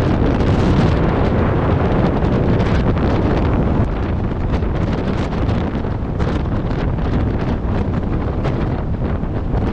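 Strong storm wind buffeting the microphone: a loud, steady rushing, heaviest in the low range, that eases a little about four seconds in.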